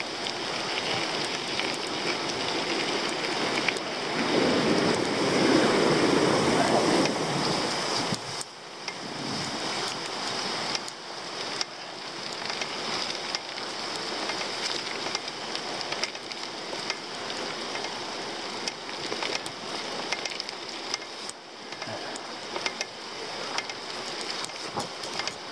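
Mountain bike riding down a dirt forest trail: tyres rolling over dirt and leaves, the bike rattling over bumps, with wind rushing over the microphone, loudest about four to seven seconds in.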